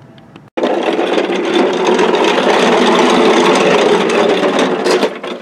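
Small motorised toy car driving along a concrete path: its electric motor and gears whirring steadily with the plastic wheels rattling, starting abruptly about half a second in and dropping away near the end.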